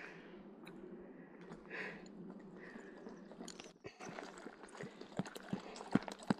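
Bees buzzing faintly, a low steady hum, with scattered soft clicks and rustles in the second half.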